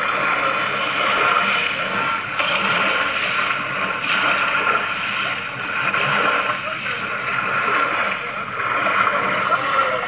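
Small waves washing and lapping over a stony shore, a steady noisy rush.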